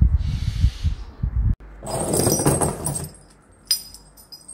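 Metal hoist chain rattling and jangling as it is handled, after a stretch of low rumbling handling noise; a single sharp click follows near the end.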